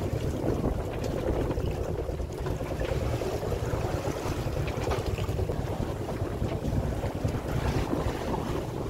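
Wind blowing on the microphone aboard a sailboat under way, over a steady low rumble from the boat's engine.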